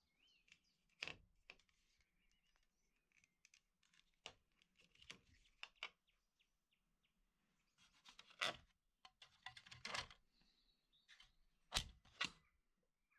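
Quiet handling noise: scattered clicks and short rubs, ending with two sharp plastic clicks as a fold-out plastic bottle holder on the bed frame is flipped open. A few faint bird chirps in the background near the start.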